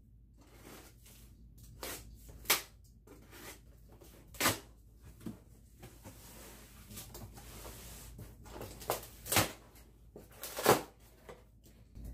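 Cardboard box being opened by hand: packing tape cut and pulled and the flaps bent back, giving scattered sharp crackles, rustles and knocks of cardboard.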